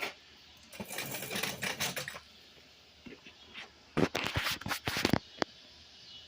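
Steel parts of a welding table being handled: a scraping rustle for about a second, then a louder clatter of knocks and clicks about four seconds in.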